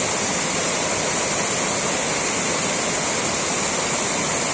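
Steady rushing water, like a waterfall or fast stream: an even, unbroken hiss with a strong high edge.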